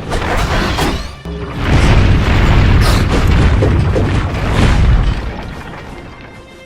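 A rumbling boom effect over music: it swells up about a second and a half in, holds loud for about three seconds, then fades away. A few sharp hits come before it.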